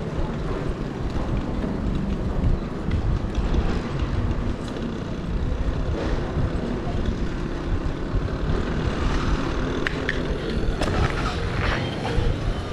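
Riding noise picked up by a GoPro action camera on a Polygon Siskiu D5 mountain bike rolling along a city street: steady wind rush on the microphone and tyre rumble. There are a few sharp rattling clicks near the end.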